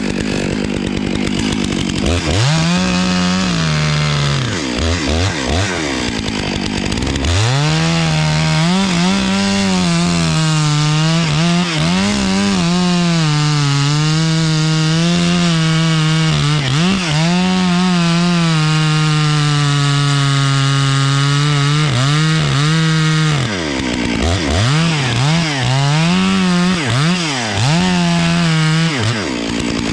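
Chainsaw cutting the face notch into the trunk of a big maple: a few short revs for the first several seconds, a long steady cut at full throttle from about seven seconds to about twenty-three seconds, then more short revs near the end.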